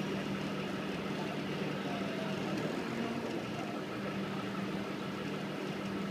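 Engine of a Venetian waterbus (vaporetto) running steadily under way, a constant low hum over a noisy rush, heard from on board.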